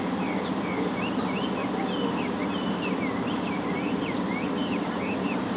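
Birds chirping in a quick run of short rising and falling notes over a steady background rumble.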